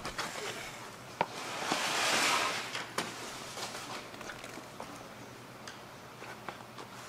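Concrete weights being set down on a stack of wooden boards pressing mullet roe: two sharp knocks, about two seconds apart, with a louder rustling scrape between them, then a few light clicks.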